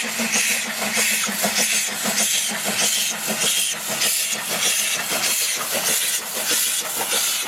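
Toy locomotive being scrubbed clean in water: a steady hissing wash with rhythmic strokes about two to three a second over a faint low hum.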